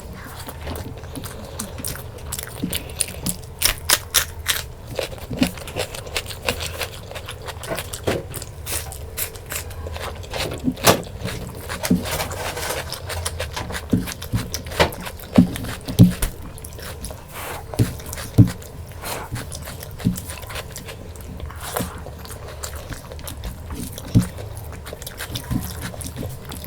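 Close-miked eating of mutton curry and rice: irregular wet smacks and clicks of chewing, with occasional crunches and scrapes, over a low steady hum.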